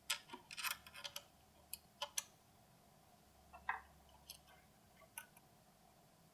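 Scattered small clicks and taps of hand tools and hardware being handled during assembly: a quick cluster in the first second, then single clicks every second or so.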